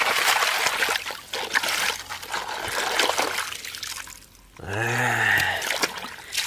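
Shallow muddy water splashing and trickling through a plastic colander as a toy truck is lifted and swished in it. About four and a half seconds in, a person makes a short low vocal sound lasting about a second.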